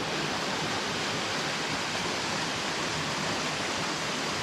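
Steady rush of a jungle waterfall close by, falling water pouring over rock tiers.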